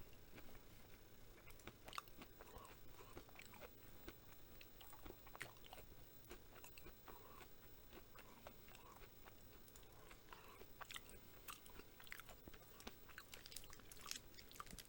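Faint, irregular crunching as a person chews a mouthful of Reese's Crunchy Peanut cup: milk chocolate and peanut butter with crunchy peanut pieces.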